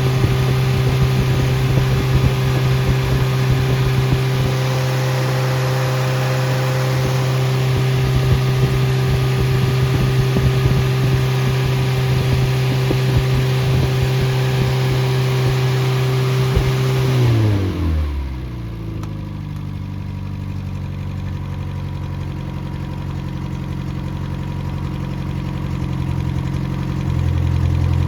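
Freshly rebuilt Triumph Spitfire/MG Midget 1500 four-cylinder engine running steadily at raised speed, then the revs fall away about two-thirds of the way through and it settles to a lower, quieter idle. It is not yet broken in.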